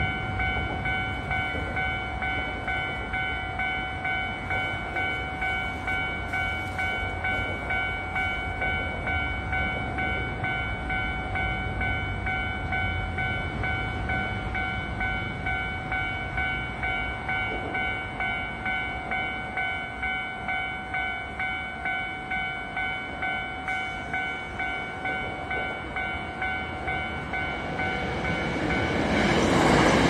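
Japanese level-crossing warning bell ringing steadily, about two strokes a second. Near the end a Hankyu train comes onto the crossing, its rumble rising over the bell.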